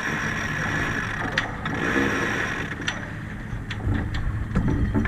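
Sheet winch on a racing sailboat being ground by hand, its ratchet giving scattered sharp clicks over a steady rush of wind and water.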